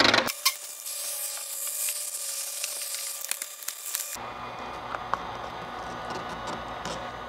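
Adhesive vinyl wrap film (Avery SW900 matte metallic green) being handled on a car door. It starts with a sharp crackling tear as the film lifts away, then crinkles and rubs with scattered small clicks as it is stretched and pressed down by hand.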